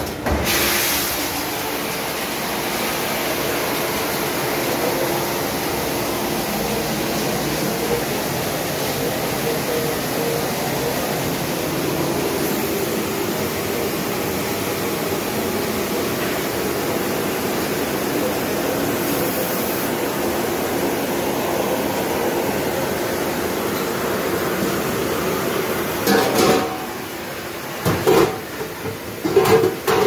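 Commercial rack dishwasher running its wash cycle: a steady rush of spraying water and motor that stops abruptly near the end, followed by a few sharp knocks.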